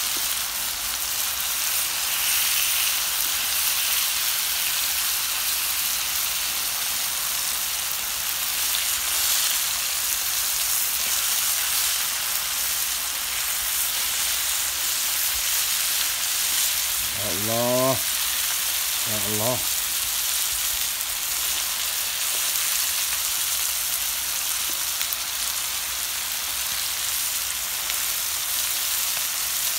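Beef ribs, tomatoes and their juices sizzling in a metal baking tray over a charcoal grill: a steady frying hiss in the final stage of cooking.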